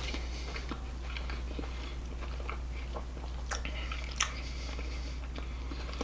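A person chewing a bite of a fried spicy chicken sandwich close to the microphone: wet mouth clicks and crunching of the breading, with a couple of sharper crunches about three and a half and four seconds in. A steady low hum runs underneath.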